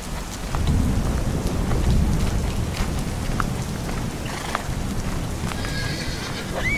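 Steady rain with scattered drops, and a low roll of thunder that builds about half a second in and slowly fades. Right at the end a horse starts to whinny.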